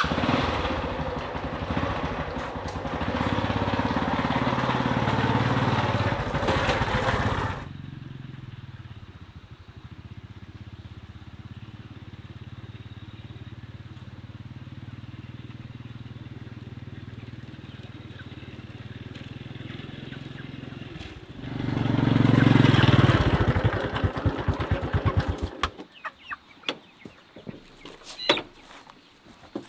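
Small motorcycle engine running: loud for the first seven or so seconds, then lower and steady through the middle, loud again from about 22 seconds in, and shut off about 26 seconds in. Scattered small clicks and a brief high chirp follow.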